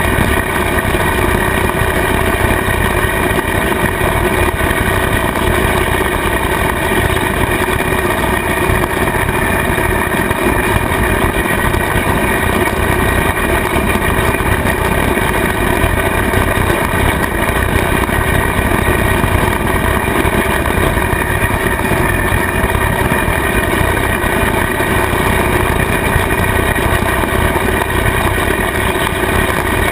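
Kubota tractor's diesel engine and its PTO-driven bush hog (rotary cutter) running steadily while mowing grass, with several steady tones and no change in pitch or level.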